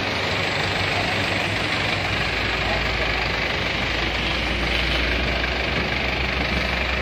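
Four-wheel paddy tractor's diesel engine running steadily.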